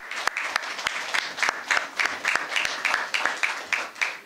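Applause from a small audience, many hands clapping, dying away near the end.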